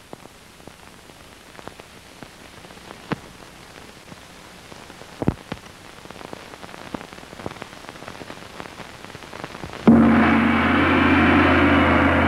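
Faint, irregular clicks and crackle, then about ten seconds in a gong struck once, loud and ringing on with many steady tones.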